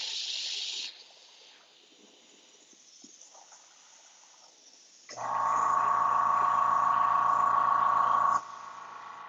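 A short burst of airbrush spray hiss, then a quiet stretch. About five seconds in, a loud steady machine hum with a high whine starts suddenly, lasts about three seconds and drops to a quieter steady hum.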